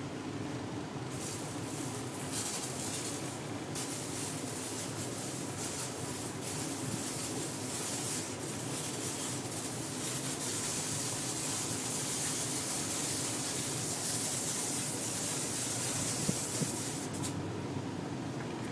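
One-gallon hand-pump sprayer's nozzle hissing out a fine mist. It comes in a few short on-off bursts at first, then a long steady spray that cuts off shortly before the end, over a steady low hum.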